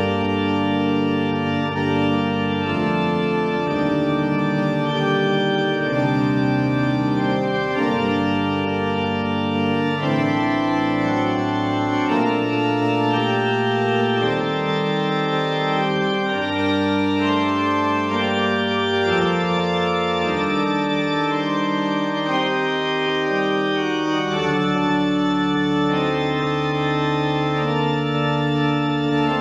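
Church pipe organ playing slow, sustained chords with deep pedal bass notes beneath, the chords changing every second or two.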